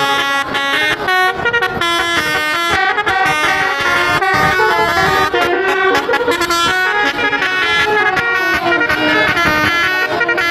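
Bus 'telolet' musical air horns playing a fast tune of short stepped notes, several tones sounding together, without a break.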